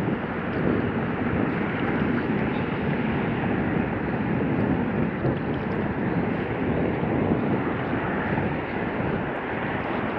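Wind blowing across the microphone in a steady rushing noise, with no distinct events.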